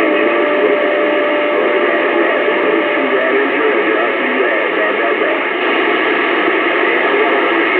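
Radio receiver hissing with static while tuned to long-distance skip, with a steady whistle of a carrier tone for about the first three seconds that then stops. Faint, garbled voices can be heard under the noise.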